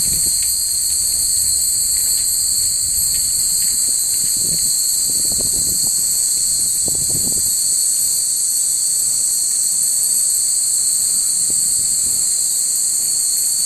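Steady, dense chorus of insects trilling, the loudest sound throughout, with faint scattered tinkles of hanging wind chimes and a low rumble of wind on the microphone about halfway through.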